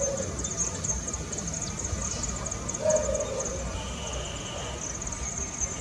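Insects trilling in a steady, high-pitched chorus of rapid pulses, with a brief lower sound about three seconds in.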